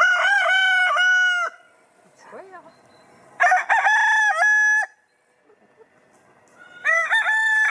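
Rooster crowing three times, a cock-a-doodle-doo about every three and a half seconds, each crow lasting about a second and a half. The third crow starts near the end.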